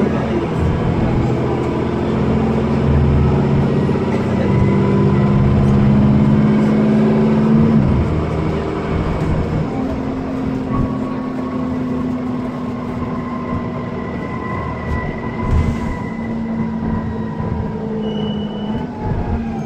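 Dennis Trident 2 double-decker's diesel engine and ZF automatic gearbox, heard from inside the bus as it pulls along under power. There is a gear change about eight seconds in, after which the engine runs on steadily with a faint whine.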